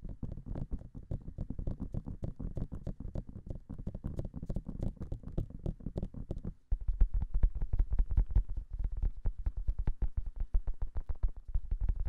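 Fast fingertip tapping on the silicone ears of a binaural microphone, picked up from inside the ear so each tap lands close and full. After a short break about two-thirds of the way through, the taps come back deeper and heavier.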